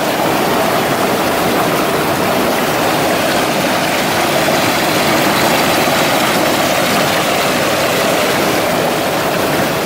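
Waterfall rushing close by: a loud, steady, even roar of falling water.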